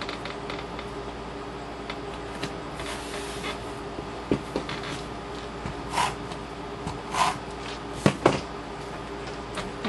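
Paper handling on a tabletop: short rustles and light clicks as die-cut paper pieces are picked up and pressed onto a scrapbook page, with two sharp knocks just after eight seconds in, over a steady hum.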